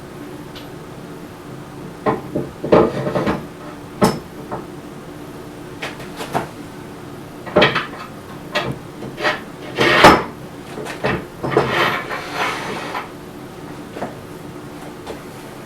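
Heavy metal parts of a wood lathe being handled and fitted on the bed: an irregular series of knocks and clunks, the loudest about ten seconds in.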